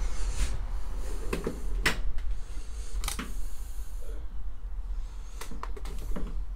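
Metal tool chest drawer being pulled open and rummaged through, hoses and cables shifting inside, with several sharp knocks and clatters along the way.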